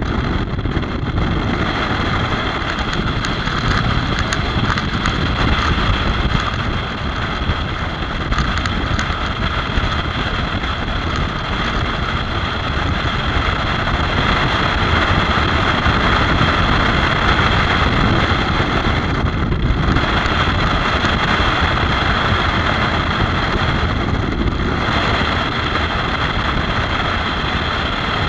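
Motorcycle riding at steady road speed: wind rushing over the camera microphone with the engine and tyre noise underneath.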